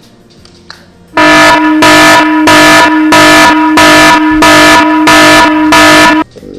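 Very loud horn-like blare on one fixed pitch, repeated in about eight even blasts over five seconds, stopping abruptly. It has the clipped, full-volume character of an edited-in air-horn sound effect.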